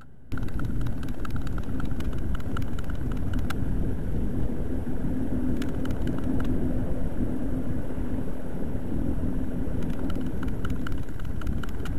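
Road and engine noise of a 2004 Jeep Cherokee on the move, heard through a dashcam inside the car and starting abruptly just after the start. A steady drone stands out through the middle, with scattered light clicks.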